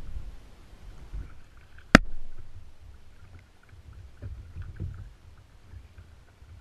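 Small waves sloshing against a kayak's hull, with a low rumble throughout. About two seconds in the paddle gives one sharp knock against the kayak, followed by a couple of softer thumps a few seconds later.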